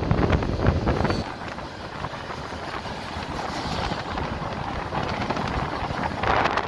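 Freight cars of a long mixed train rolling past: a steady rumble of steel wheels on the rails with clatter and clicks. It is louder for the first second or so and swells again near the end.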